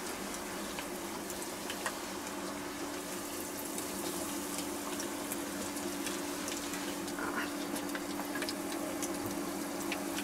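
Chicken karaage deep-frying in a small saucepan of hot oil: a steady sizzle with scattered small pops, growing a little louder about four seconds in. A steady low hum runs underneath.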